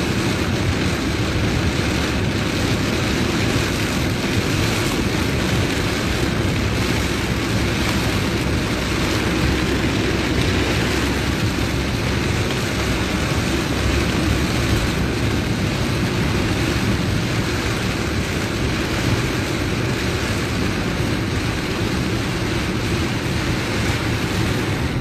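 Heavy rain falling on a car, heard from inside the cabin as a steady, loud rush mixed with the vehicle's road noise.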